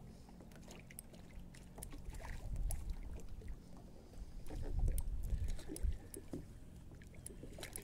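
Water splashing and sloshing in low swells as a hooked thick-lipped grey mullet thrashes at the surface beside a landing net, with a few small knocks.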